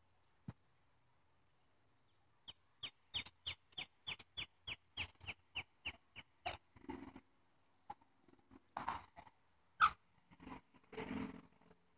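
Free-range hens calling: about two and a half seconds in, a quick run of short, high calls, each falling in pitch, about four a second, followed by lower, rougher clucks and squawks.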